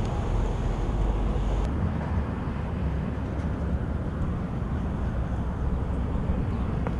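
Steady outdoor background noise: a low rumble with a hiss above it that drops away suddenly about two seconds in.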